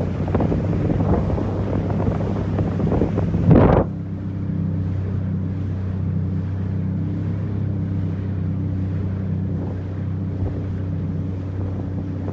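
Sea-Doo GTX 300 personal watercraft's supercharged Rotax 1630 ACE three-cylinder engine running steadily while underway. Wind and spray noise on the microphone is heavy over the first few seconds, with a loud surge just before it eases, after which the engine's steady hum is plain.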